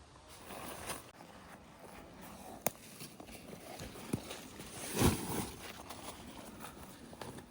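Rustling and shuffling movement inside a canvas tent, with a sharp click about two and a half seconds in and a louder thump about five seconds in.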